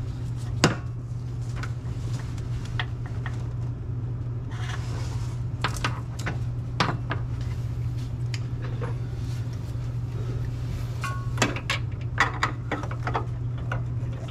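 Scattered metallic clicks, clinks and knocks as spark plug wire boots are pulled and tools handled at the plugs of an air-cooled VW flat-four engine, with a brief rustle near the middle, over a steady low hum.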